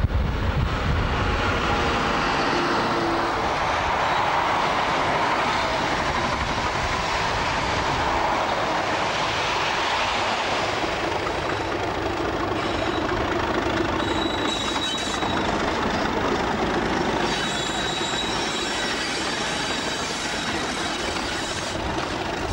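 Two British Rail Class 37 diesel locomotives working in multiple, their English Electric V12 engines running as they haul a train of hopper wagons slowly past, with the steady rumble of wheels on rail. From about midway a thin high wheel squeal joins in on and off.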